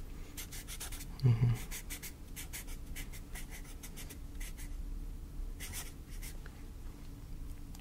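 Writing on paper: a run of short scratching strokes, with a brief low vocal sound from the writer about a second in.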